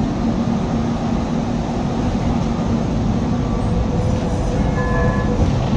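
Cabin running noise of a Tatra T3 tram in motion: a steady rumble of wheels on rail. About four seconds in, a brief thin wheel squeal joins it as the tram runs through a curve.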